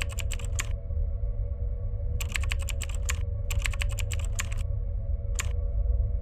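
Typing on a computer keyboard: three quick runs of keystrokes, then a single click near the end.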